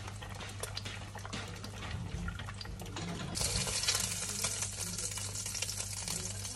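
Egg frying in a pan, with a spatula clicking and scraping against it; a loud sizzle comes in suddenly about halfway through and keeps going. A steady low hum runs underneath.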